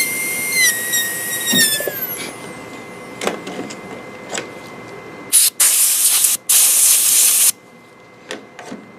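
High-speed air-turbine dental handpiece with a 330 bur whining steadily, dipping once under load, then spinning down and stopping about two seconds in. After a few light clicks, loud hissing blasts of compressed air come about five seconds in and last about two seconds.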